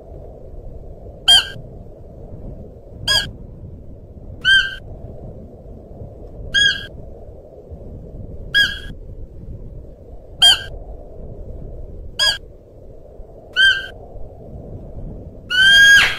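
Siberian musk deer calling: eight short, high-pitched calls about every one and a half to two seconds, then a longer, louder call near the end, over steady low background noise.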